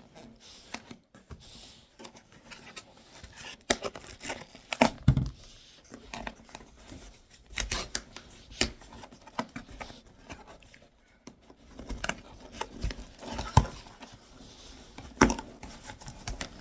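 Cardboard shipping box being opened by hand: tearing, crinkling of packaging and scattered sharp knocks and rustles.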